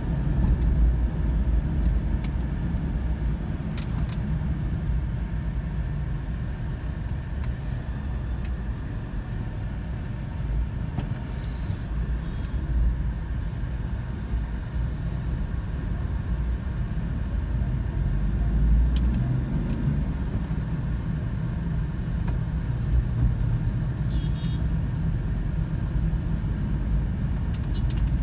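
Car driving through city traffic, heard from inside the cabin: a steady low rumble of engine and tyre noise.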